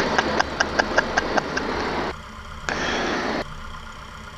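Cessna 172 Skyhawk touching down: a pulsing warning tone from the stall warning horn over the idling engine in the flare, stopping about a second and a half in. A short burst of noise follows near the three-second mark as the wheels meet the runway in a slightly rough landing.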